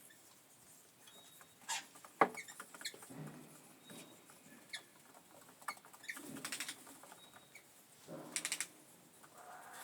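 Australian ringneck parrots eating chopped apple: scattered beak clicks and nibbling, with two short rapid runs of clicks about two seconds apart.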